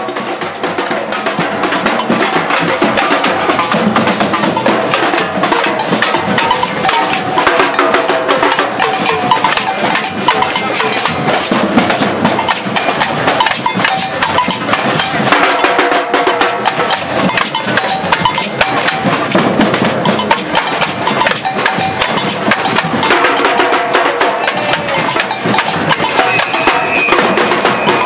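Batucada percussion group playing a dense, driving samba rhythm on drums slung at the waist, with metallic ringing accents over the drumming. It fades in over the first second or two, then holds loud and steady.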